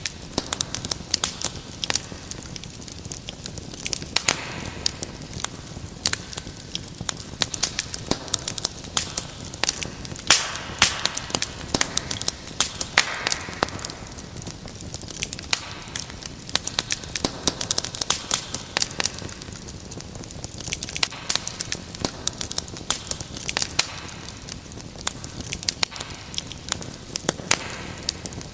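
Wood fire in a fireplace crackling, with many irregular sharp pops and snaps over a low steady hiss, and a brief swell of hissing every few seconds.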